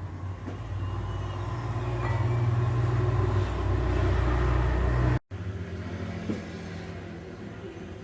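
Air conditioner compressor switched on, a heavy low hum that builds for a few seconds and then cuts off suddenly about five seconds in, with a softer hum left after it. This is the sign of a compressor shorted to ground tripping the breaker.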